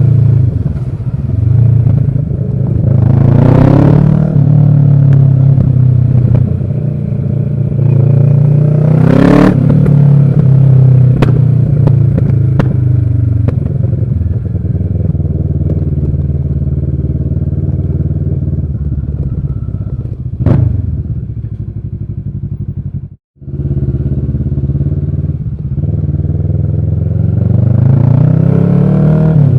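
Kawasaki ER-6n's 649 cc parallel-twin engine running under way, revs climbing twice in the first ten seconds and again near the end, each climb cut off by a drop as it shifts gear. The sound cuts out briefly a little after twenty seconds.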